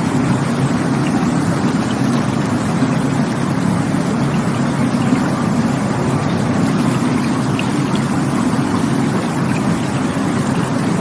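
Rushing water, a loud, unbroken, even rush with a deep, full body and no splashes or breaks.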